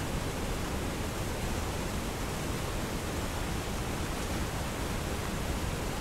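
Ice-covered waterfall running steadily: an even, unbroken rush of falling water.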